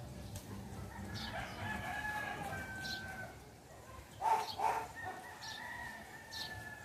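A rooster crowing: two long, drawn-out crows, with a louder, short two-part call from the fowl a little after four seconds in.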